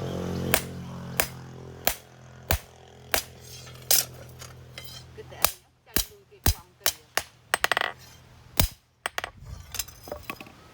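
Hammer blows on metal at the anvil, forging a knife blade: evenly spaced strikes, about one every two-thirds of a second for the first four seconds, then more irregular strikes with some ringing.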